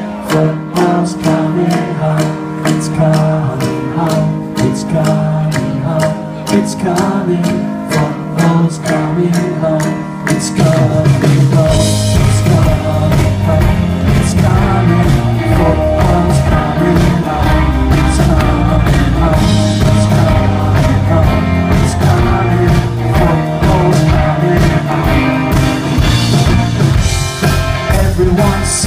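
Live rock band with electric guitars, bass and drums, with singing, heard from the crowd. For about the first ten seconds the playing is lighter, then the full band comes in with bass and drums and it grows louder.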